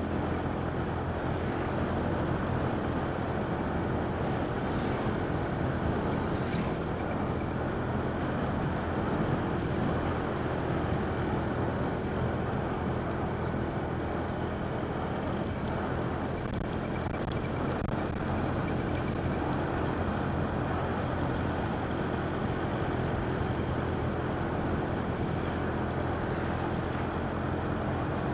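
Vehicle engine running steadily at cruising speed, with unbroken road and wind noise.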